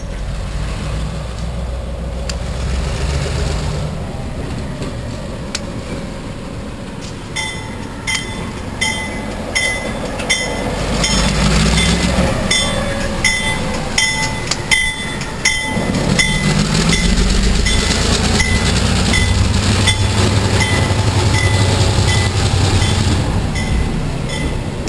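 Diesel locomotive rolling past close by at low speed, engine rumbling and wheels clicking over the rail joints as it hauls gondola cars. About a third of the way in, a bell starts ringing at a steady pace of a little over one strike a second and keeps on while the train passes.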